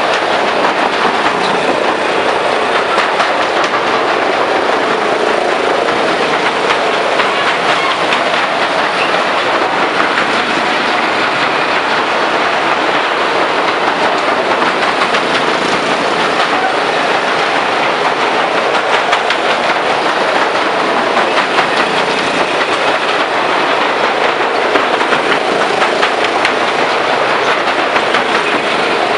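Fairground ride running: a loud, steady clattering rumble, dense with small clicks, as the cars roll over the wooden plank track.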